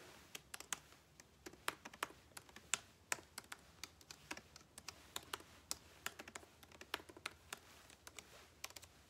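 Faint typing on a keyboard: quick, irregular key clicks, several a second, with short pauses between runs.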